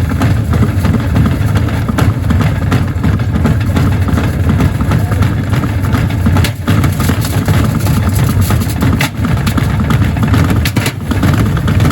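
Gorenje washing machine running with heavy bricks in its drum: a loud, steady low rumble with a few sharp knocks, one about two thirds of the way through and another near the end.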